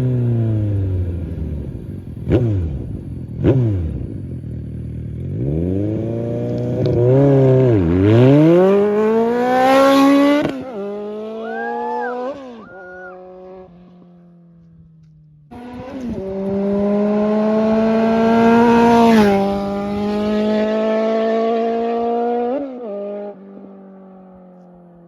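Suzuki Bandit 1250's inline-four engine under full throttle. Two quick throttle blips come first, then a hard pull with the pitch climbing and dropping at each upshift before the throttle eases. After a short lull there is a second hard pull through the gears, which then settles and fades near the end.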